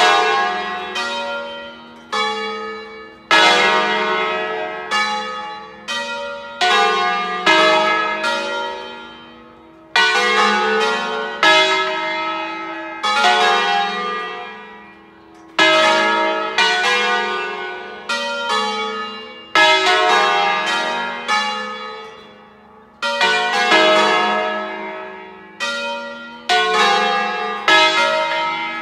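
A ring of five church bells in E (Mi3 calante), swinging in a full peal (distesa). The bells were cast by Felice Bizzozero in 1818, and the largest, the E bell, was recast by Angelo Bianchi in 1956. Strikes come every second or two in uneven clusters, and each bell's ringing overlaps the next and dies away between strikes.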